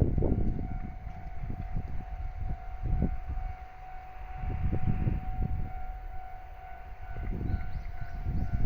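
Japanese railway level-crossing warning alarm sounding a steady electronic tone, over an uneven low rumble that swells and fades.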